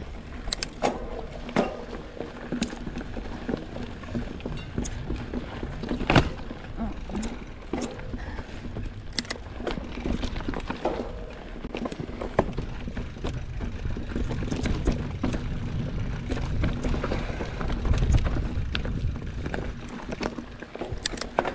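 Mountain bike, a Specialized Stumpjumper, rolling over rough trail: a steady rumble of tyres and wind on the microphone, broken by frequent sharp knocks and rattles as the bike hits rocks and roots.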